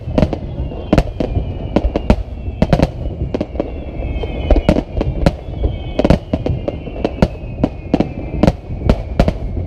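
Fireworks display: a rapid barrage of bangs from bursting shells, two or three a second, over a steady low rumble, with several high whistling tones gliding slowly downward.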